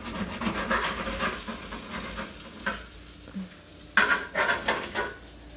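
Meat sizzling in a cast iron skillet while metal tongs scrape and turn it in the pan, with a few sharp knocks about four seconds in.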